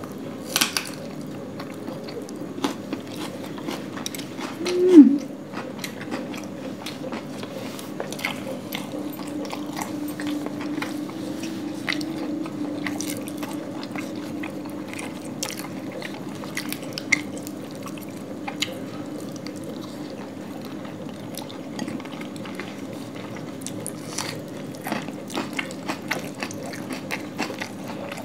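Two people chewing and biting laccha paratha and chicken curry eaten by hand, with many scattered small mouth clicks and smacks. A short vocal sound about five seconds in is the loudest moment.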